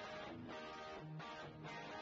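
Low-level background music led by a strummed guitar, with notes changing on a steady rhythm.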